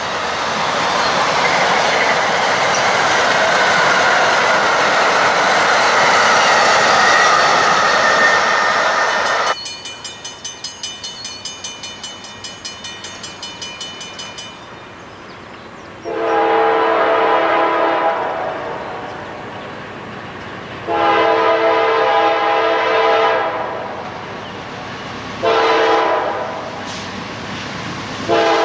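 A train passes close with a loud rush of wheels on rail for about nine seconds, then a bell rings rapidly, about four strokes a second, for a few seconds. A multi-tone locomotive horn then sounds two long blasts and a short one, and a fourth long blast begins at the end: the standard long-long-short-long signal for a grade crossing.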